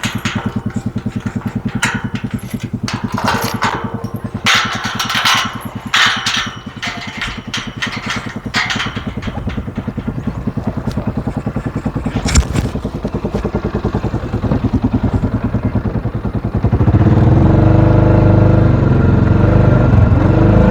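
A small farm vehicle's engine idling with an even, rapid pulse, with irregular clattering during the first half and a sharp knock a little after halfway. About 17 seconds in, the engine speeds up and runs louder.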